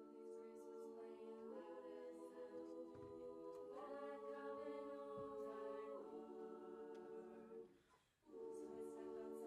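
Women's a cappella group singing slow, held chords in close harmony, the chord changing about every two seconds. The singing breaks off briefly about eight seconds in, then a new chord starts.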